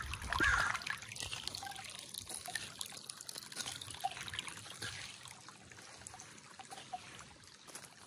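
Shallow rocky creek trickling and gurgling over stones, fading slowly.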